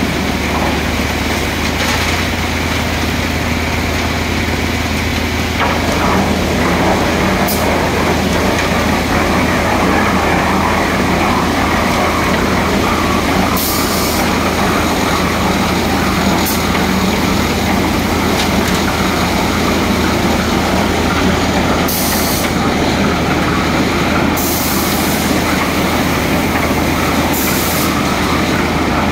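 Tractor-driven transit concrete mixer running, its engine turning the drum while wet concrete sits in the discharge chute: a steady, loud heavy mechanical rumble. Short bursts of high hiss come through it several times.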